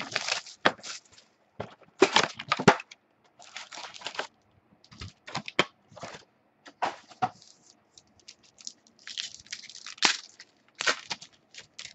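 Trading card box and foil packs being torn open by hand: irregular tearing, crinkling and rustling with sharp clicks and snaps throughout.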